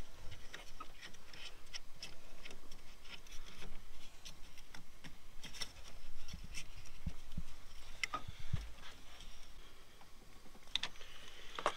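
Scattered light clicks and taps of hands and a small ratchet working a wire terminal onto a truck battery's terminal post, hooking up a hot wire.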